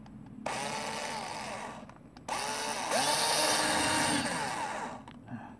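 Electric drill with a small bit drilling a pilot hole for a screw through the front bumper's rubber skirt, in two bursts, the second longer and louder, the motor's pitch rising and falling as the trigger is worked.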